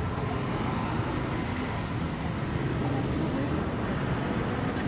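Busy outdoor street-food market ambience: indistinct crowd chatter over a steady low rumble.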